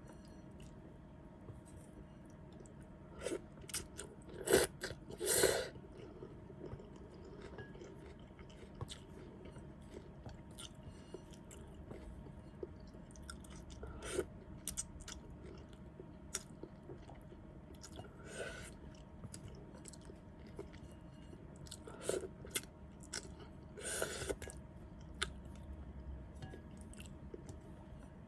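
Close-miked chewing and wet mouth clicks of someone eating noodle soup, with a few louder short bursts scattered through.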